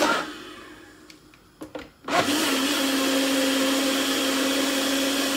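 NutriBullet blender puréeing hot korma sauce. The motor winds down, a few short clicks follow, then about two seconds in it starts again and runs with a steady, even whine.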